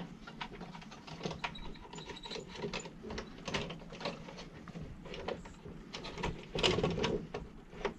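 Irregular small clicks, taps and rustles of hands working on a vacuum cleaner's power cord and plastic parts, getting busier and louder about two-thirds of the way in.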